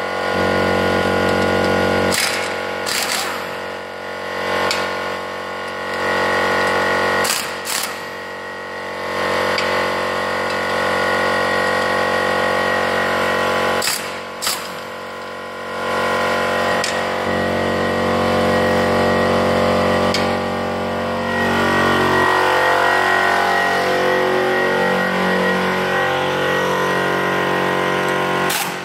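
Impact wrench running car wheel bolts out and back in, in repeated spells of whirring and hammering rattle, with a few sharp clanks between spells.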